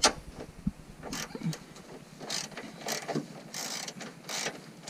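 Hand socket ratchet with a 13 mm socket, clicking in short repeated strokes as a bolt is worked loose. There is a sharp clink right at the start.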